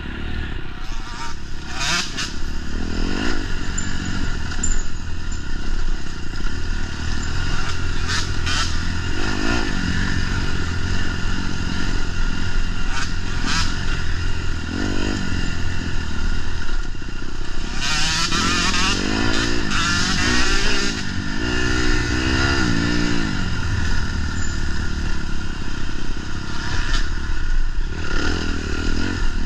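Off-road motorcycle engine running hard through a race, its pitch rising and falling as the throttle opens and closes, with scattered knocks and clatter.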